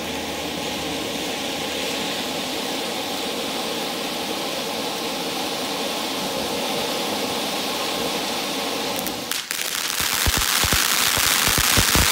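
Phantom Peacock Tail Fan fountain firework spraying sparks with a steady hiss. About nine seconds in it turns to a louder, dense crackling of many rapid pops.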